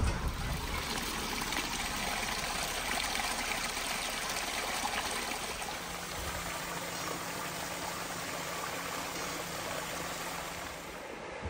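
A small woodland stream trickling and splashing steadily as it spills over a fallen log and rocks into a pool.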